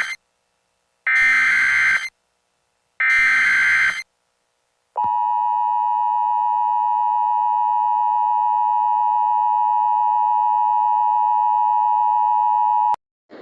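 Emergency Alert System header on a simulated NOAA Weather Radio broadcast: three harsh digital data bursts of about a second each, the first already under way. After a short gap comes the steady alert tone, held about eight seconds and cut off abruptly, announcing the next warning message.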